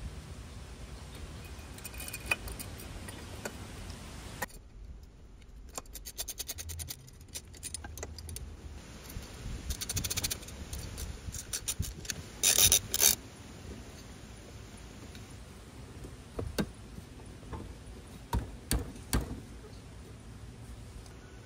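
Small metal clinks, clicks and scrapes as a nut and bolt are handled and fitted to a welded aluminium rack bracket, with a louder rattling cluster about two-thirds of the way through.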